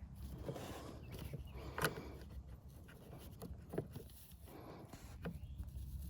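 Hands working a rubber breather hose onto its fitting on the throttle body: light rustling and scraping with a few sharp knocks and clicks, about three, spread through.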